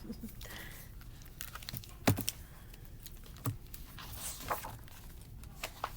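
Handling of a hardback picture book: paper rustling as pages are turned, with a few light clicks and taps, the sharpest about two seconds in.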